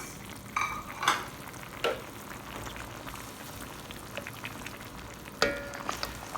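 Chicken simmering and bubbling in black soy sauce gravy in a pan, with a utensil knocking and scraping against the pan a few times as potatoes are added. There is one louder, ringing clank about five seconds in.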